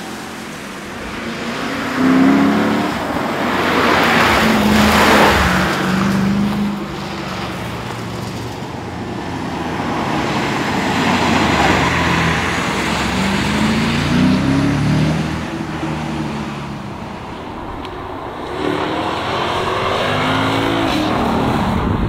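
Lexus IS F's 5.0-litre V8 accelerating hard past the roadside several times. The engine note rises with each run and drops back between them, with a loud surge as the car goes by about four to five seconds in.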